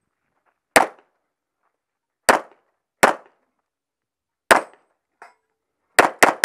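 Semi-automatic pistol firing about seven close, sharp shots at uneven spacing, the last three in quick succession near the end, with a faint short ring between the shots.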